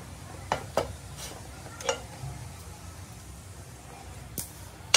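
Several sharp metallic clinks of tools and lead battery plates being handled on a metal-topped bench, over a steady faint hiss, while the plate lugs are lead-burned into a strap with an electrically heated rod.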